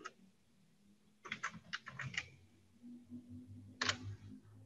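Computer keyboard keystrokes, faint: a quick run of several key presses a little after a second in, then a single key press near the end as the query is run.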